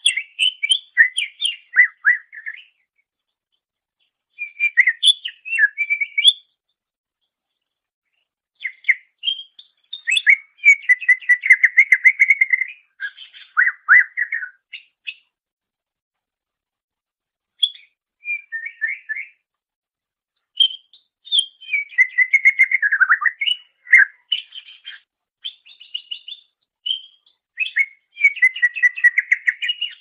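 Cucak ijo (greater green leafbird) singing in varied phrases of whistled notes and fast chattering trills, in bursts of a few seconds broken by short pauses.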